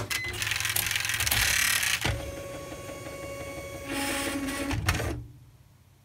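IBM 6746 daisy-wheel electronic typewriter running its power-on self-check: the print carriage motor whirs and rattles as the carriage travels across the platen, over a steady hum, then stops about five seconds in.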